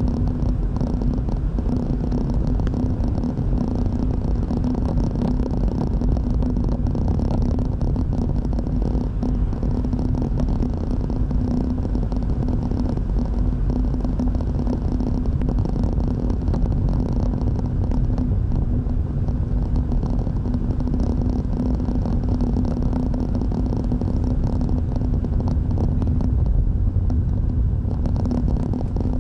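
Car driving, heard from inside the cabin: a steady low rumble of tyres on the road and the engine, with a constant hum underneath.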